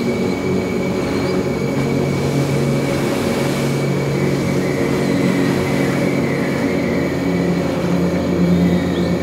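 Steady ambient soundscape: a low, unchanging droning hum over a constant hiss, with a brief swell of hiss about three seconds in and a faint high chirp near the end.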